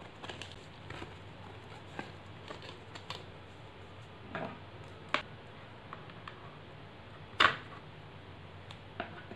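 Faint handling sounds of silk thread being wound round a plastic box lid: soft rustling with scattered light clicks and taps, the sharpest about seven seconds in.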